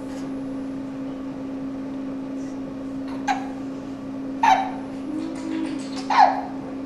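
A one-month-old baby hiccupping: three short, sharp hiccups, each with a little squeak, about a second and a half apart, over a steady low hum.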